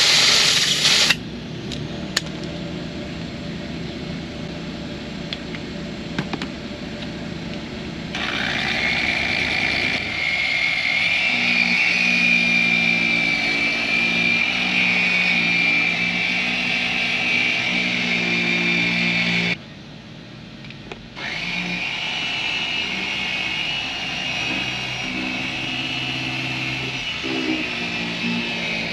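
Small 3-inch polisher running steadily on a headlight lens with headlight polish, with a high whine. It cuts out for about a second and a half about twenty seconds in, then starts again. A short, loud hissing rush comes right at the start.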